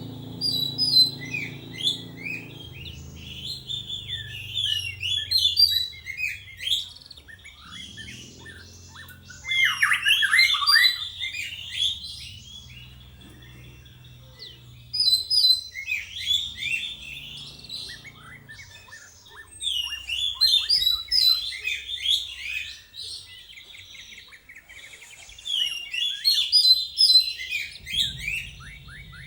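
A young white-rumped shama singing in bursts of rapid, varied twittering and chirps, about five phrases of a few seconds each with short pauses between them.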